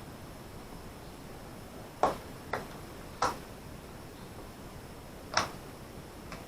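Four sharp clicks of small hard parts being handled, irregularly spaced, about two seconds in, then half a second and a second later, then once more about five seconds in.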